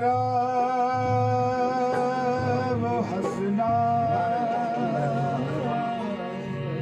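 Men singing a Sufi devotional kalam in qawwali style, a voice holding long wavering notes, over a steady harmonium and a dholak drum beat.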